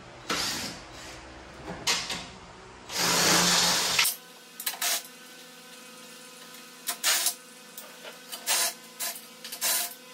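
Cordless drill with a socket running in short bursts as it backs out the nuts and screws holding a truck's front crash bar, with one longer run of about a second around three seconds in. The second half holds a string of short, sharp knocks and clicks.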